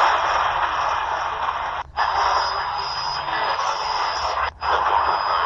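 Shortwave reception from a Tecsun PL-368 portable radio: heavy static and hiss with weak broadcasts faint beneath it and a thin steady high whistle. The audio cuts out briefly twice as the radio steps to the next stored station.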